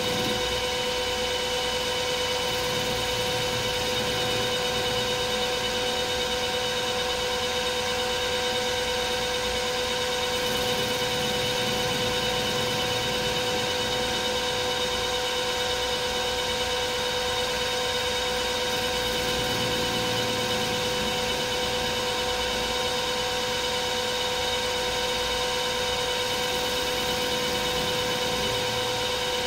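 Metal lathe running under power feed, a facing bit cutting across the end of spinning round metal stock. A steady hum with several constant higher tones that does not change.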